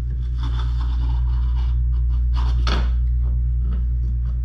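Tail shaft housing of an NP208 transfer case scraping and rubbing against the case as it is turned and lowered to line up with the oil pump's ears, with a couple of light knocks near the middle. A steady low hum runs underneath throughout.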